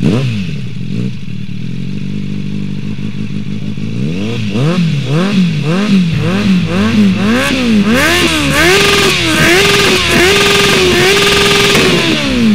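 600 cc motorcycle engine of a kart cross, running steadily, then revved up and down about twice a second from about four seconds in, then held at high revs before the revs drop right at the end.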